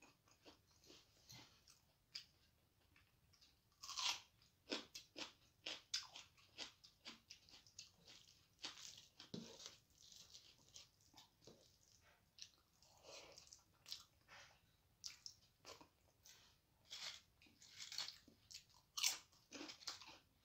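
Close-up eating sounds of rice being eaten by hand: chewing and wet mouth smacks mixed with the soft squish of fingers working starchy rice. There are many short clicking sounds throughout, more frequent after about four seconds.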